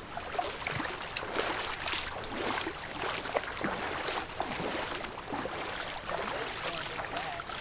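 Shallow river water lapping and splashing at a stony shore as someone wades, with irregular small splashes and crunches.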